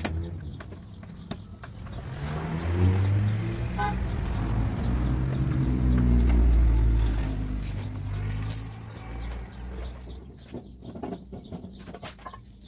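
A motor vehicle's engine running, growing louder over a few seconds and then fading away, with scattered light clicks and taps.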